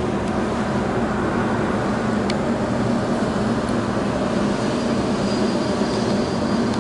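Four turbofan engines of a BAe 146-family regional jet running at low taxi power: a steady, loud hum, with a faint high whine coming in over the last couple of seconds.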